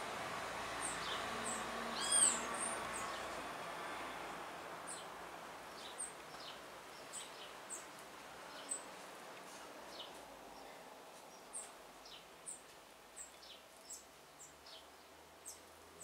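Small birds giving short, sharp chirps every second or so, with one louder arching call about two seconds in, over a soft hiss that fades away during the first few seconds.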